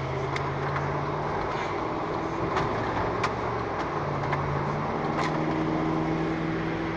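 Car engine and road noise heard from inside the cabin of a moving car. The engine's pitch shifts about four to five seconds in, and there are a few light clicks.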